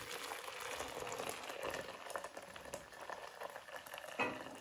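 Water pouring into a plastic measuring jug: a splashing, bubbling hiss as the jug fills, easing off about four seconds in.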